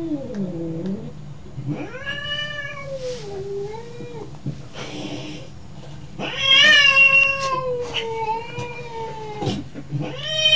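Tabby-and-white domestic cat meowing over and over in long, wavering yowls, about five calls. The longest and loudest runs about three seconds, starting a little past the middle.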